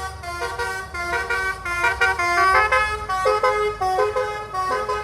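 Basuri 'telolet' multi-tone electric horn playing a tune of quick notes that step up and down in pitch.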